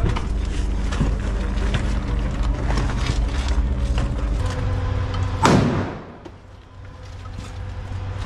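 A steady low mechanical hum with scattered clicks of handled gear, broken about five and a half seconds in by a single loud sharp bang, after which it is quieter.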